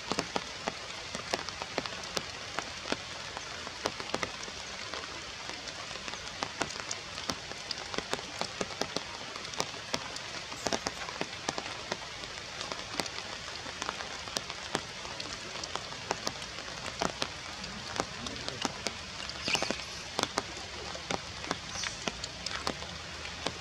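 Steady rain falling through the forest canopy, with frequent sharp drop hits scattered throughout.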